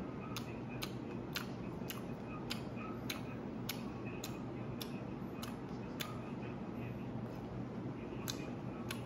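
Close-up chewing: short wet clicks and smacks from a mouth chewing food, about two a second, over a steady low hum.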